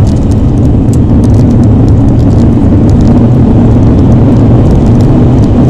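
Alfa Romeo 159's 1.9 JTDm four-cylinder turbodiesel pulling at a steady pace, heard from inside the cabin under loud, even tyre and road noise.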